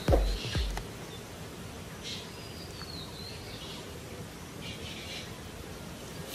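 Outdoor background noise with faint bird calls every second or so, one of them a falling whistle near the middle. A last note of music dies away in the first second.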